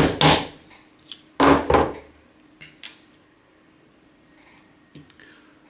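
Hammer taps on a metal pin punch driving a knurled pin out of a gas blowback magazine's valve assembly: two pairs of sharp metallic taps about a second and a half apart, the first ringing briefly with a high tone. A few light clicks of the small metal parts being handled follow.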